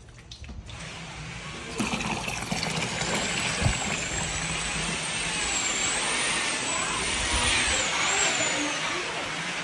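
Electric drill driving a drum-type spring cable drain cleaner, running from about two seconds in with a high motor whine that wavers up and down in speed over a steady hiss, as the cable spins through the clogged kitchen drain pipe.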